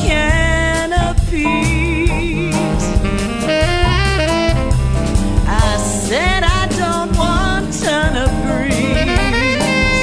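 Background jazz music: a melody line with vibrato over a drum kit and bass.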